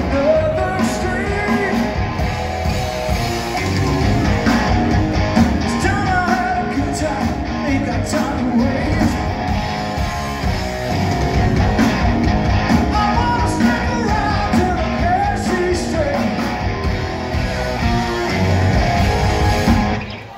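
Live rock band playing: a singer over electric guitar, bass, drums and keyboards. The music drops off briefly at the very end.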